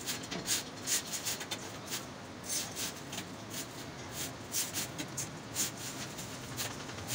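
Thin crimped steel wires clicking and scraping against one another as they are threaded by hand into a woven wire mesh, in quick, irregular light ticks.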